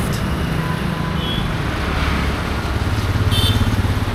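Road traffic passing close by: motorcycles, scooters and trucks running past with a steady engine rumble that swells about three seconds in.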